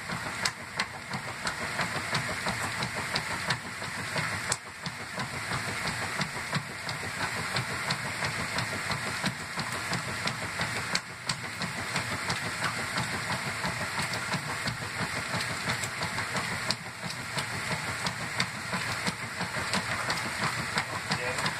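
1997 Kenmore top-loading agitator washer running at the start of its wash cycle, with a steady rush and churn of water in the tub.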